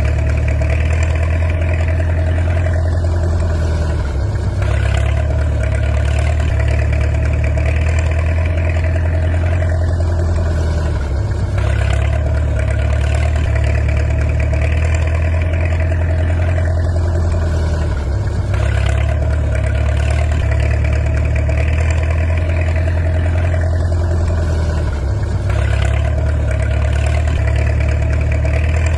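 Steady engine running sound with a strong low hum, the same pattern repeating about every seven seconds with a brief dip and a sharp stroke each time.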